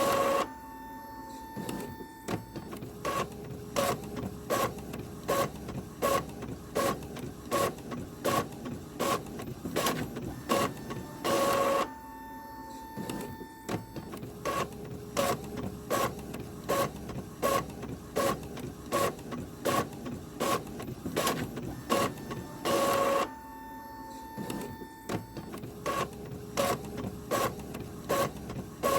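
Printer running and feeding paper: regular mechanical clicking a few times a second, with a short louder whir about every eleven seconds, each followed by a steady hum.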